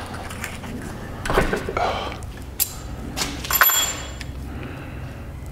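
Metal parts knocking and clinking as a steel outboard shift linkage rod is handled at a bench vise. There are several separate knocks, and one sharp clink about three and a half seconds in rings briefly.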